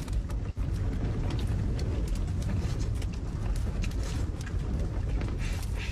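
Strong winter wind blowing steadily across an open desert plain, a deep rumble with a hiss over it.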